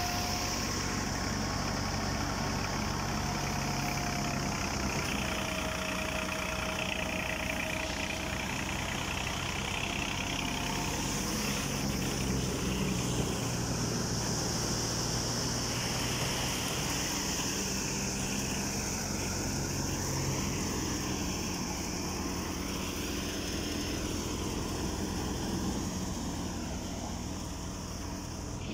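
Massey Ferguson 240 tractor's three-cylinder diesel engine running steadily under load, driving a wheat thresher through its PTO shaft, with a steady high hiss over the engine's drone.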